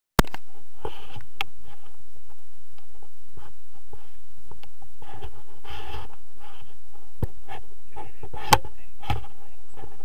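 Scattered clicks and knocks with brief rustling: handling noise on a close-up action camera.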